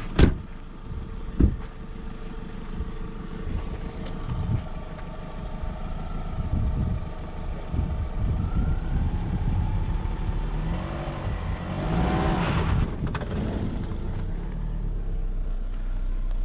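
Opel Astra G's 1.6 16-valve four-cylinder petrol engine running, with a sharp thump of a car door shutting at the start and a second knock about a second later. The engine then revs, rising in pitch, and is loudest around three-quarters of the way through as the car pulls away on loose sand.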